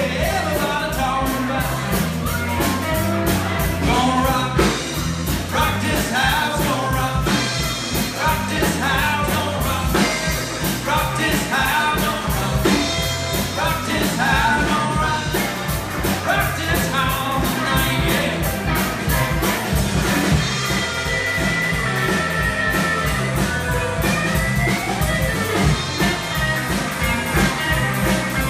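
Live rock-and-roll band playing: electric guitars, electric bass and a drum kit with a steady driving beat, with singing over them.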